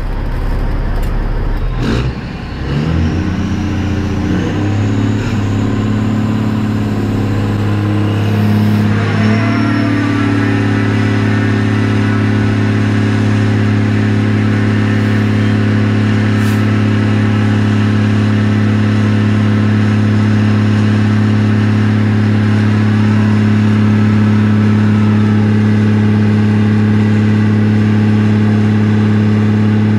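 Peterbilt semi tractor's diesel engine revving up over the first several seconds, then held at a steady high rev while its rear tyres spin in a burnout.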